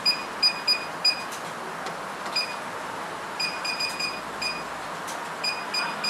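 Key-press beeps from a wireless alarm control panel's keypad as a PIN is entered and menu keys are pressed: about a dozen short, high, identical beeps in an uneven run, some in quick succession, each one confirming a key press.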